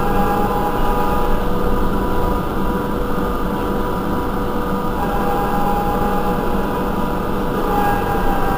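Irisbus Cristalis ETB12 trolleybus standing still with its electrics running: a steady hum and whine made of several fixed tones over a low rumble, with a higher whine that drops out after about a second and comes back around the middle.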